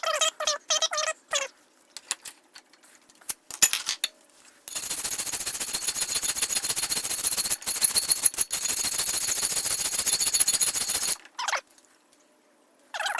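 Steel of a cleaver blade cut from a mower blade being worked with a metal tool: a continuous rasping of very rapid fine ticks that starts a few seconds in and runs about six seconds, with two brief breaks, before stopping suddenly.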